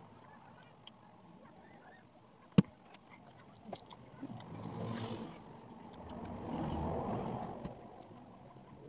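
Quiet eating at a table, with one sharp tap about two and a half seconds in, and soft swells of low sound near the middle and toward the end.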